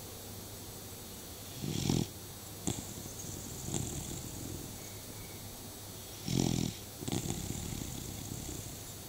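Beagle snoring: two louder rasping snores about four and a half seconds apart, with softer breathing noises between.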